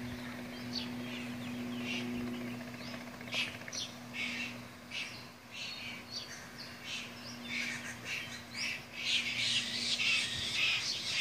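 Birds calling in short chirps and squawks, getting busier and louder over the last few seconds, over a steady low hum that fades out near the end.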